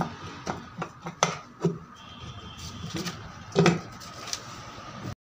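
Hero Splendor Plus gearbox shafts and gears being fitted by hand into the aluminium crankcase: a string of light metal clinks and knocks, the loudest about three and a half seconds in, over a faint steady high hum. The sound cuts off suddenly just before the end.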